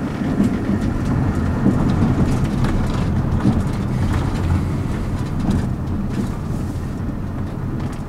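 Car driving across a gravel car park, heard from inside the cabin: a steady low engine and road rumble with the tyres rolling and crackling over loose gravel.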